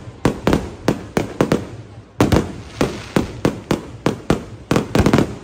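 Fireworks exploding in rapid, irregular bangs, several a second and sometimes in quick clusters.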